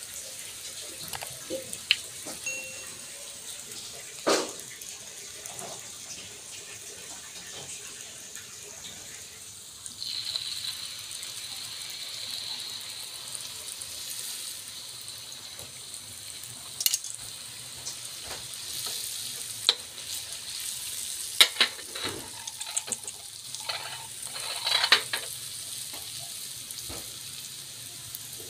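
Kembang goyang batter deep-frying in hot oil in a wok: a steady sizzle that grows louder about ten seconds in, as fresh batter goes into the oil. A handful of sharp clicks sound over the sizzle.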